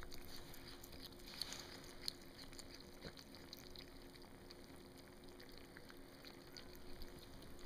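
Faint chewing of several kittens eating raw steak chunks, heard as a scatter of small irregular clicks.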